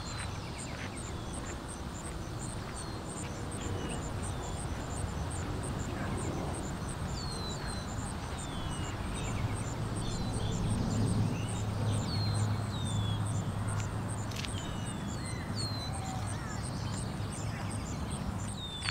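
Outdoor ambience: small birds chirping in short, falling notes, often in pairs, over a low traffic hum that swells for several seconds around the middle as a vehicle runs close by.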